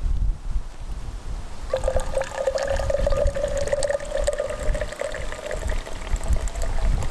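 Freshly brewed coffee poured from a press mug into a stainless-steel tumbler, starting about two seconds in, its pitch rising slightly as the tumbler fills. A low rumble runs underneath.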